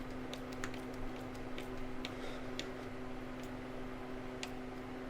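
Faint, irregular clicks and light taps of hand work fitting a heater hose and its clamp onto an engine's water pump, a few in quick succession and one more near the end, over a steady low hum.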